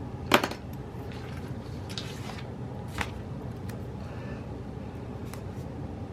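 Small hard objects being handled on a desk: a sharp click about a third of a second in, a soft rustle about two seconds in, and another click about three seconds in, over a low steady hum.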